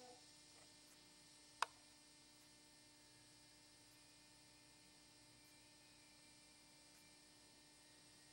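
Near silence with a faint steady electrical hum. A single sharp click comes about a second and a half in.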